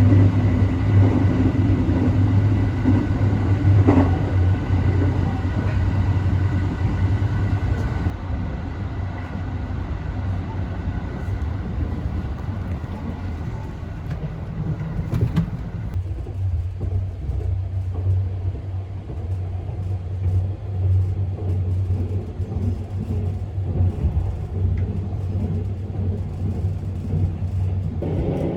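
Cabin noise of a 285-series sleeper electric train running: a steady low rumble from the running gear, with a thin steady whine that fades out about eight seconds in.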